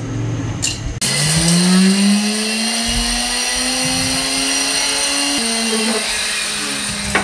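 Small electric grinder motor starting about a second in and spinning up with a rising whine, then running steadily as it grinds cardamom pods in its steel jar. Its pitch drops slightly after about five seconds.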